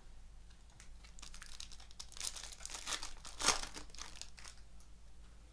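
Plastic crinkling and crackling as trading cards and their packaging are handled, densest and loudest in the middle of the stretch.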